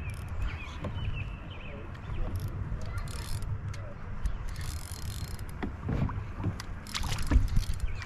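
Wind rumbling on the microphone, with short rustles and a cluster of knocks and clicks from handling gear on a plastic pedal kayak, the loudest knocks near the end.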